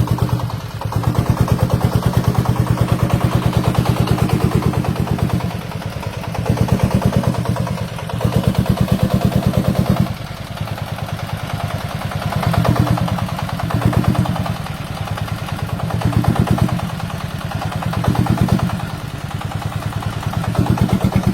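Diesel engine of a home-built farm transport vehicle running with a fast, even knocking beat, swelling louder and dropping back several times as it works.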